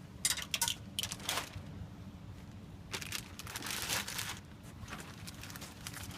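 Wrench and Allen key working a nut and bolt on a go-kart's steel frame: a few sharp metal clicks in the first second and a longer stretch of scraping and clicking about three to four seconds in, as the bolt is tightened.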